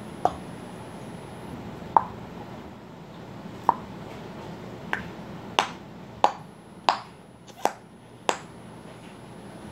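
Homemade slime stretched thin between the hands, its trapped air bubbles popping with sharp little snaps: about nine pops, coming faster in the second half.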